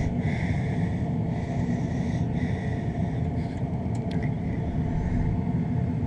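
York 80% efficiency gas furnace running during its start-up cycle: a steady low rumble, with a few faint clicks about halfway through.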